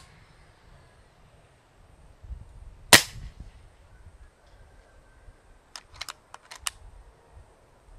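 Kral Puncher Breaker .22 PCP air rifle firing a single shot on medium power, a short, sharp report about three seconds in. A quick run of sharp clicks follows near the end.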